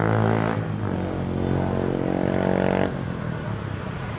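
Motorbike traffic on a street with a long, steady droning blast. The blast breaks off just under a second in, starts again, and stops about three seconds in.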